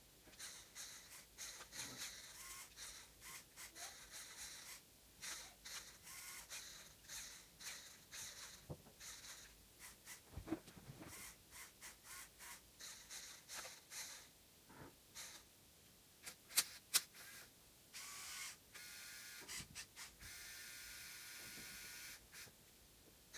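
Small electric motors and plastic gears of a LEGO Technic forklift whirring in short stop-start bursts as it drives and steers. Two sharp clicks come about two-thirds of the way in, followed by a longer steady whine as the mast raises the load.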